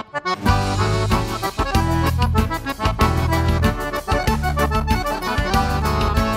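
Upbeat accordion music over a bass line and a steady beat, with the full arrangement coming in about half a second in: an intro jingle.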